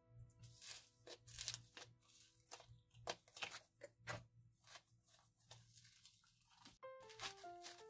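Fluffy foam slime being squeezed and stretched by hand, giving many small irregular crackles and pops. A simple tune comes in near the end.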